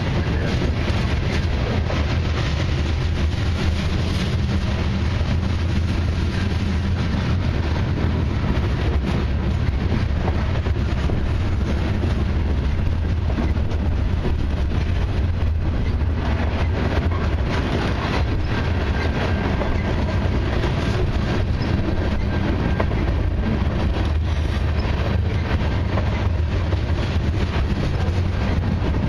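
Freight train's covered hopper cars rolling past, a steady low rumble with wheels clattering over the rail.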